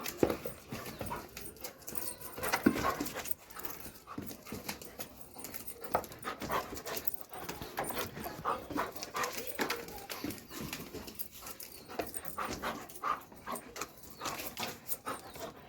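A Doberman making many short, irregular dog sounds.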